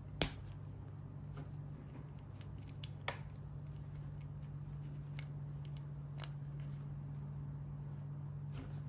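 LEGO plastic pieces being handled and snapped together: a sharp click about a quarter second in, two quick clicks around three seconds in, and a few fainter clicks, over a steady low hum.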